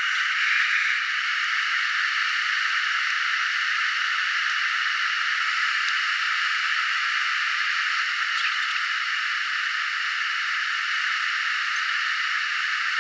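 Steady rushing hiss of jet airliner cabin noise, the airflow and engines heard inside the cabin during descent, with little low rumble.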